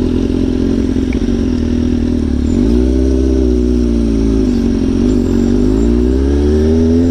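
Straight-piped motorcycle engine with no muffler running under way, its pitch lifting and easing a few times as the throttle is worked.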